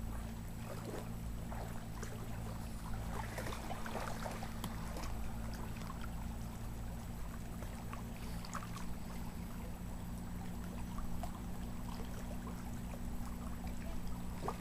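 Faint outdoor ambience at the water's edge: a steady low hum under light water sounds, with a few faint ticks and rustles.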